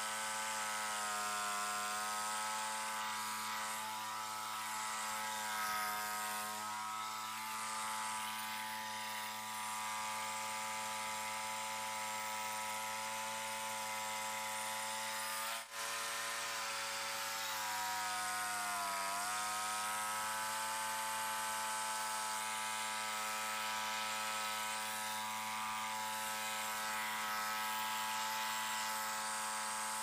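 Frontier OS27 portable bandsaw mill running: its small gasoline engine drones steadily while the band blade cuts a white pine log. The sound cuts out for a moment about sixteen seconds in, and the engine note dips briefly and recovers a few seconds later, as under added load.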